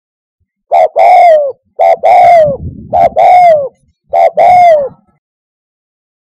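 Spotted dove cooing loudly. It gives four two-part coos, each a short note followed by a longer note that falls in pitch: three in quick succession starting about a second in, then a fourth after a short pause.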